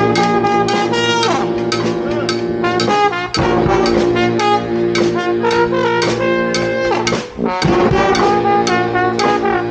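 Street brass band playing live: horns such as trombones, trumpets and saxophones holding notes over a steady drum beat, with a short break about seven and a half seconds in.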